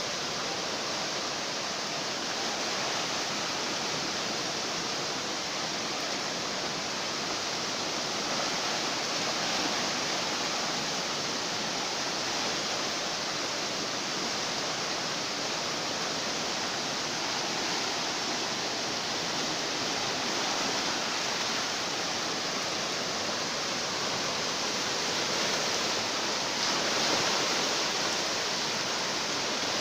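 Floodwater from a flash flood rushing past in a swollen river, a steady, unbroken rush of water.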